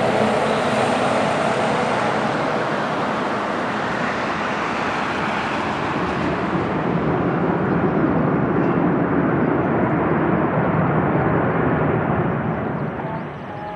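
Jet airliner passing low on final approach to land, its engines loud with a faint high whine. The high-pitched part fades after about six seconds, and the noise drops away near the end as the plane moves off.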